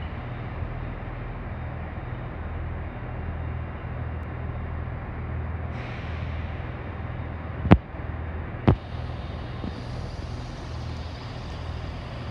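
Chiltern Railways Class 168 Turbostar diesel multiple unit running its underfloor diesel engines at a platform, a steady pulsing rumble. A short hiss of air comes about six seconds in, two sharp knocks about a second apart follow near eight and nine seconds, and a higher hiss sets in near ten seconds.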